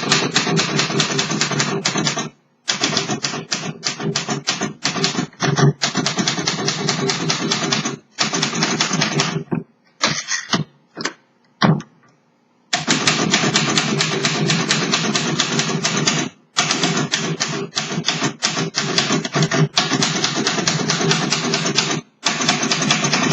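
Typing on a 1939 Royal Varsity manual typewriter: rapid keystrokes in runs of several seconds, each strike a sharp clack, with a few short pauses and a stretch of scattered single strikes midway.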